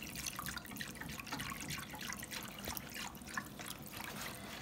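Wire whisk stirring milk into a flour-and-butter roux in a stainless steel saucepan, making béchamel sauce: liquid sloshing with many quick, irregular clicks of the wires against the pan.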